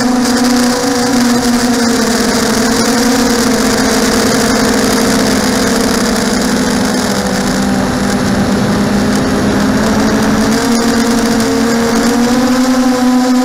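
Mini racing quadcopter's electric motors and propellers whining steadily, the pitch holding with small wobbles and rising slightly near the end as the throttle changes.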